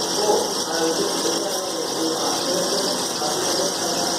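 Wire EDM machine running during a cut: a steady mechanical hum with an even hiss over it.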